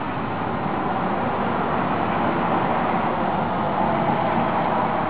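Steady, even noise of engines and heavy machinery running, with no distinct knocks or events, growing slightly louder.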